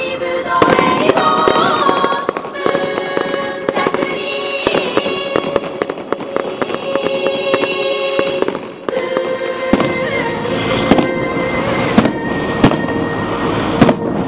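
Fireworks going off in rapid sharp bangs and crackles, with a few louder single bangs near the end, over music.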